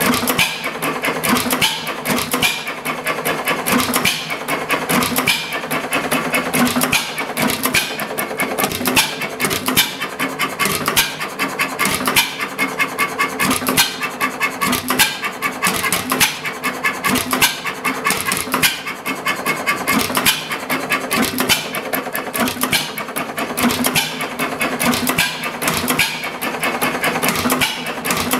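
Circa-1910 Rumely Olds 3 hp hit-and-miss engine running with its flywheels turning, giving off a steady, rapid mechanical clatter.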